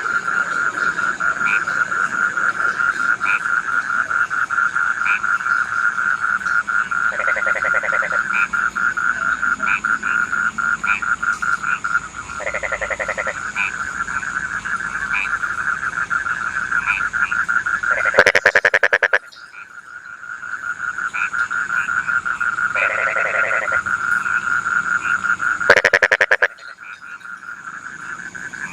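Rice-field frogs calling: a rapid pulsing trill runs on steadily, broken several times by shorter, lower croaks, with two loud croaking bursts, one just past the middle and one near the end.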